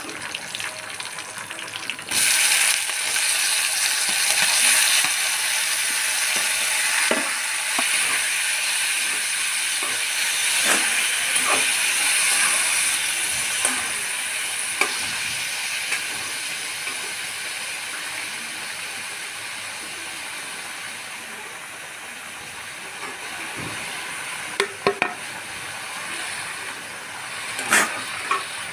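Chopped tomatoes dropped into hot spiced oil in a metal kadhai set off a sudden loud sizzle about two seconds in. The sizzle slowly dies down as the tomatoes are stirred with a spatula. A few sharp clicks of the spatula against the pan come near the end.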